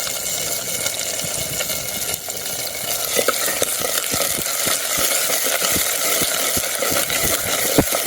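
Whole shallots and curry leaves frying in hot sesame oil in a clay pot: a steady sizzle with frequent small pops and crackles.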